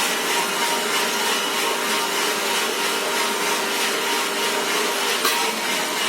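Drum coffee roaster running: coffee beans rustling as they tumble in the turning drum, over steady motor and fan noise. A steady hum stops a little after five seconds, at a sharp click.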